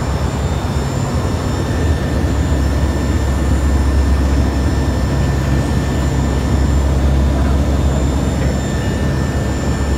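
Aircraft engines running with a steady, unchanging drone, with a few faint high steady tones above it.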